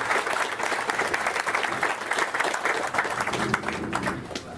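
Audience applauding, the clapping thinning out near the end.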